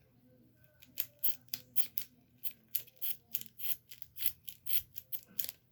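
Scissors snipping rapidly through a piece of balloon rubber, a quick run of short, sharp snips at about three a second that starts about a second in.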